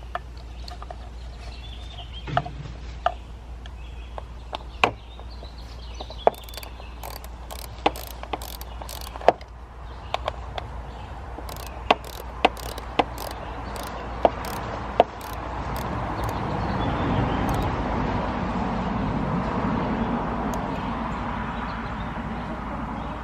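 Ratchet with a 10 mm socket tightening a hold-down bolt on the Camaro's V6 engine: a string of sharp, irregular clicks over about fifteen seconds. Then a louder rushing noise swells up and slowly fades.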